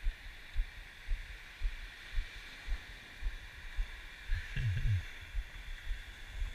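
Low thuds about twice a second, the jolt of walking footsteps on a body-worn camera, over the steady hiss of small waves breaking on a beach. A brief louder rumble comes about four and a half seconds in.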